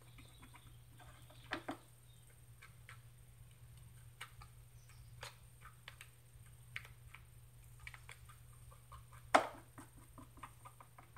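Stir stick clicking and scraping against the sides of a small plastic cup while mixing resin: light, irregular ticks, with one sharper knock about nine seconds in.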